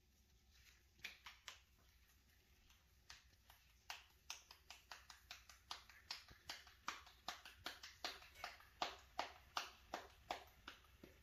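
Hands patting a ball of corn masa flat into a tortilla by hand: a run of short slaps, a few scattered at first, then a steady pat-pat at about three a second, growing louder toward the end.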